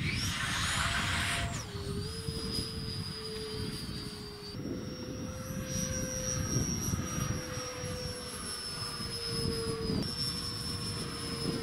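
RC model jet's electric ducted fan whining steadily as the jet flies overhead. The whine drops in pitch about a second and a half in, steps back up near four and a half seconds, and shifts again near ten seconds, over a low rumbling noise.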